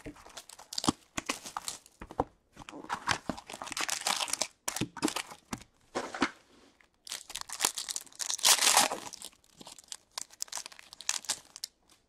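2020-21 SPx hockey card box and its foil pack wrappers being torn open and crinkled by hand, in a string of rustling bursts. The loudest stretch comes about eight to nine seconds in.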